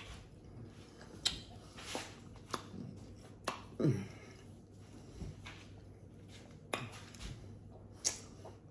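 Mouth sounds of someone eating a Kool-Aid pickle off a fork: faint chewing with sharp wet clicks and smacks at irregular intervals, and a brief falling hum about four seconds in.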